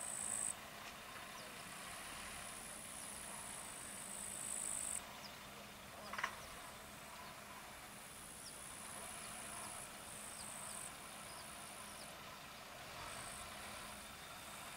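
Field insects chirring in high-pitched spells a few seconds long that start and stop, over a faint steady low hum. One brief sharp sound comes about six seconds in.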